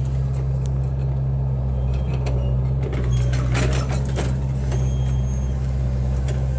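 Diesel engine of heavy earthmoving equipment running steadily, with a cluster of sharp metallic clanks and rattles in the middle.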